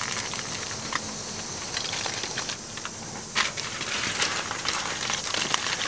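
Aluminium foil being crimped and folded by hand, with irregular crinkling and crackling, as the edges of a foil packet are pressed shut.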